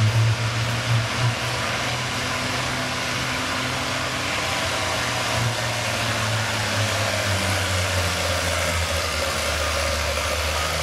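Oliver 77 tractor engine running at a steady idle, with a few louder swells in the first second or so.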